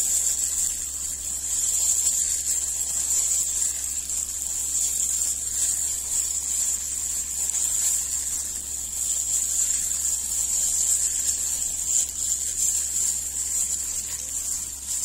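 Steady high-pitched hiss over a low hum, unchanging throughout.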